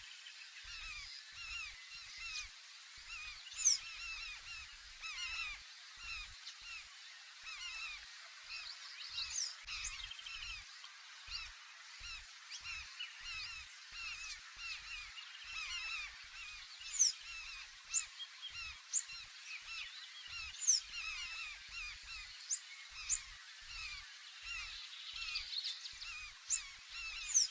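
A flock of large-billed terns calling continuously: many overlapping, harsh, honking calls, with a louder, sharp high call standing out every few seconds. Faint low thumps sound underneath.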